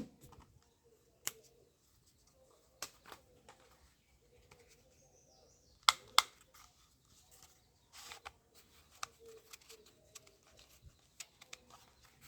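Plastic toy gun being handled, with scattered clicks of its mechanism: two loud sharp clicks close together about six seconds in, and a run of small clicks and rattles later on.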